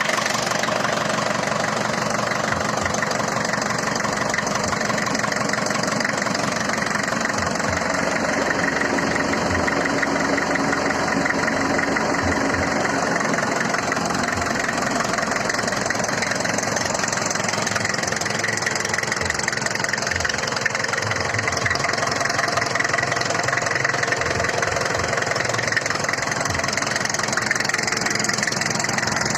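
Mitsubishi FE truck's diesel engine idling steadily.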